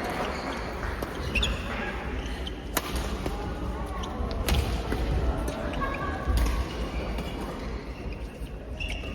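A few sharp, separate hits a second or two apart, typical of a ball being struck or bounced during a doubles match, over a steady murmur of voices.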